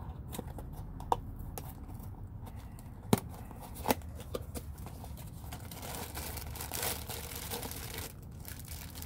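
Crinkling and rustling of a door's plastic vapor barrier being pushed about, with a few sharp clicks, the loudest about three seconds in and again just before four. The rustling thickens from about halfway through until near the end.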